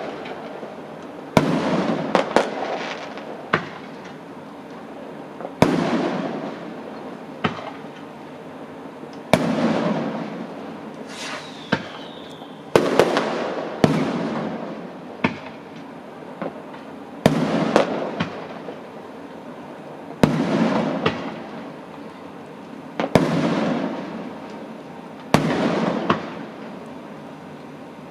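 Fireworks bursting: a sharp bang every three to four seconds, each trailing off over a second or two. A short falling whistle sounds about twelve seconds in.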